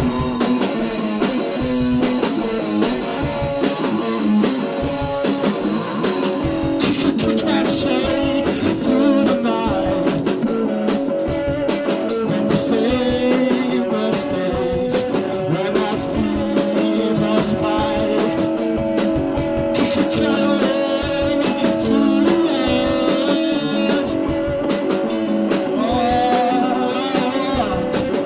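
Band playing blues rock, with electric guitars leading over drums; the uploader calls the playing drastically out of tune.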